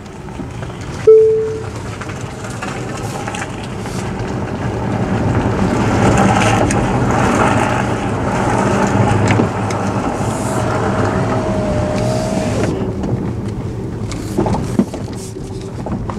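Tesla Model S driving, heard from inside the cabin: steady tyre and road rumble that swells as the car picks up speed, with a faint rising whine later on. A short, loud beep about a second in.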